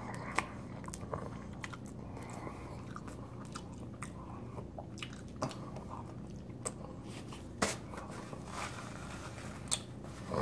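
Close-up chewing and mouth noises of a person eating spaghetti in chicken Alfredo sauce, with scattered short sharp clicks and smacks over a faint steady low hum.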